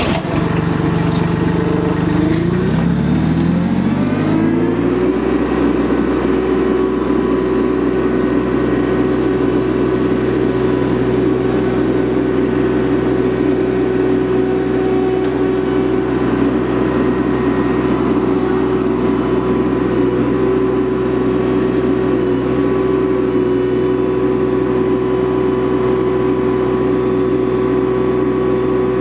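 Compact tractor's engine, just started, revs up over the first few seconds and then runs steadily at high throttle while the three-point hitch strains against a load of about 2,400 pounds, well over its rated lift.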